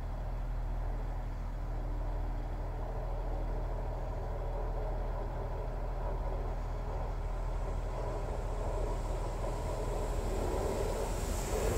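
A train rumbling on the tracks over a steady low hum, growing louder near the end as it comes closer.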